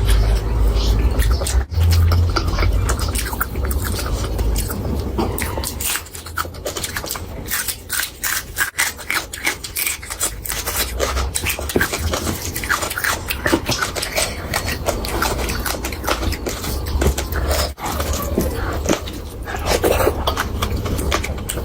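Close-miked wet eating sounds: chewing, with a rapid run of mouth clicks and smacks, and a low rumble in the first few seconds.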